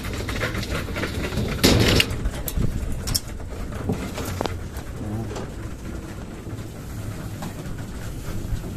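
Homing pigeons feeding in a loft trap, with soft cooing and small scattered pecking clicks; a brief loud rustle about two seconds in.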